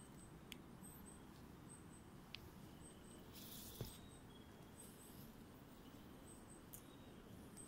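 Faint night insects chirping in short, high-pitched pulses that repeat in little series, over a quiet hiss. A few sharp ticks and a brief rustle come about three and a half seconds in.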